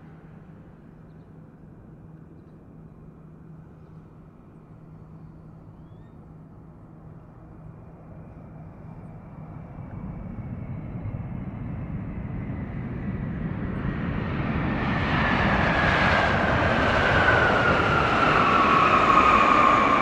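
Jet engines of a Boeing 777 freighter on its landing rollout. The rumble grows steadily louder as the aircraft comes down the runway toward the listener, and from about three-quarters of the way in a fan whine slides down in pitch as it passes.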